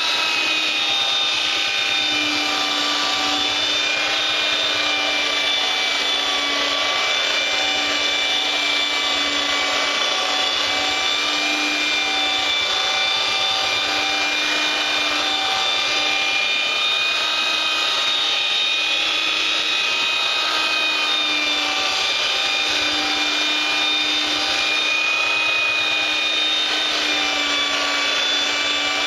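Electric power sander running steadily against a wooden cutting board, its motor whine dipping and recovering a little in pitch as it is worked.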